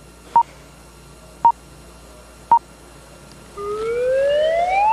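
Comic sound effects added in editing: three short electronic beeps about a second apart, then a smooth rising whistle-like glide starting about three and a half seconds in.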